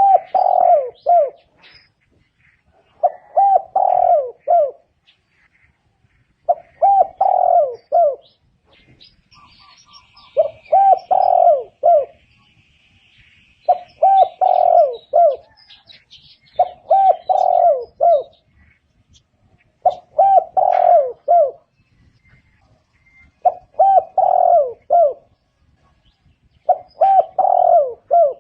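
Spotted dove cooing: the same short three- to four-note phrase repeated nine times, about every three seconds. This is the call played to lure wild spotted doves. Faint high chirps of small birds sound in the background near the middle.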